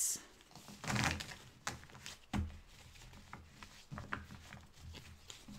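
Quiet handling noises: soft rustles and a few light knocks as game cards and pieces are handled on a table, the two most distinct about one and two and a half seconds in.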